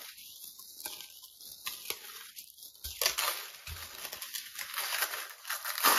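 Paper wrapping being unfolded and pulled open by hand, crinkling and rustling with small crackles, some taped edges tearing loose.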